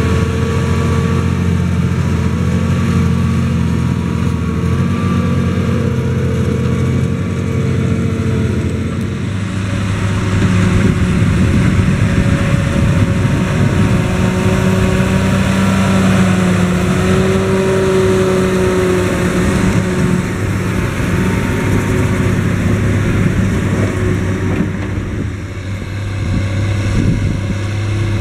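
John Deere 7280R tractor's six-cylinder diesel engine working steadily under load as it pulls a laser-controlled levelling box through loose soil. The engine note shifts about a third of the way through and rises slightly for a few seconds in the middle.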